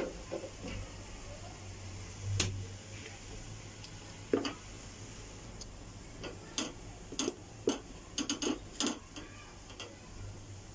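Irregular sharp clicks and light knocks, most of them bunched in the second half, over a low steady hum.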